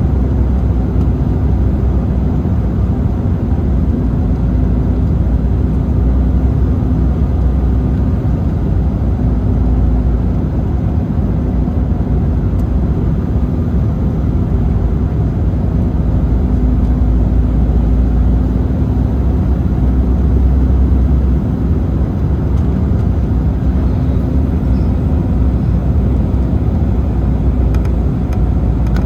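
Steady cabin noise inside an Embraer 190 airliner: the turbofan engines and rushing airflow, with a steady low hum underneath.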